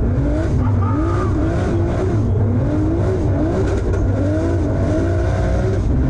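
Highly tuned BMW E46 drift car's engine heard from inside the cabin, its revs rising and falling quickly over and over as the throttle is worked through a drift.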